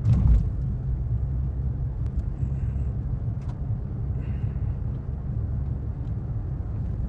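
Steady low road rumble of a moving car heard from inside the cabin, with a brief knock right at the start.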